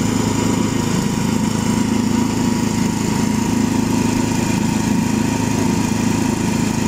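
Small petrol engine mounted on a cassava chipping machine, running steadily with an even hum.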